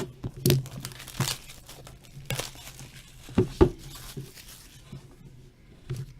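Plastic wrapping being torn and crinkled as a sealed box of hockey trading cards is opened and handled: a run of sharp crackles, loudest about halfway through, between quieter rustling.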